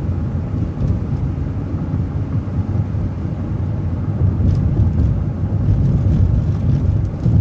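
City transit bus driving along a road, heard from on board: a steady low engine and road rumble that swells a little in the second half, with a few faint brief ticks.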